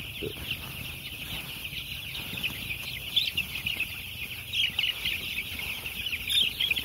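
A flock of seven-day-old broiler chicks peeping continuously: a dense chorus of high chirps, with a few louder peeps about halfway through and near the end.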